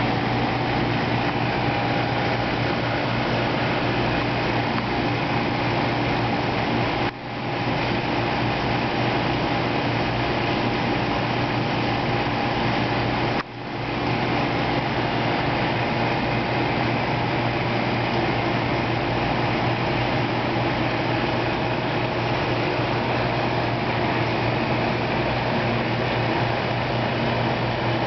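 Steady mechanical hum with an even rushing noise of running equipment. It drops out for an instant about seven seconds in and again about halfway through, then comes back.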